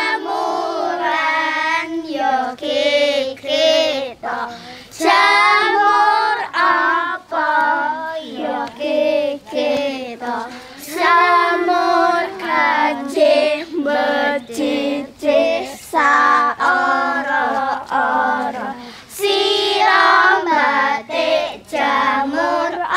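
A group of children singing a traditional children's game song together, in short sung phrases with brief breaths between them.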